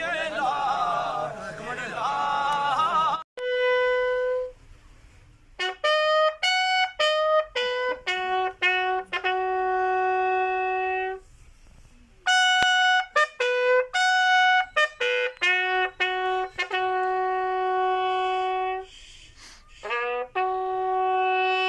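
For about the first three seconds a crowd of men's voices chants together. Then, after a sudden break, a lone bugle sounds a slow funeral call of short notes and long held ones, in several phrases with short pauses between them: the bugle salute of a military burial.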